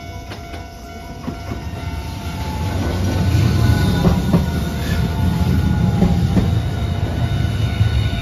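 Hiroden Green Mover APEX low-floor tram passing close by: a low rumble that builds to its loudest about three seconds in, with scattered wheel clacks over the rails and a whine that slowly falls in pitch as it goes by. A level crossing warning signal rings steadily throughout.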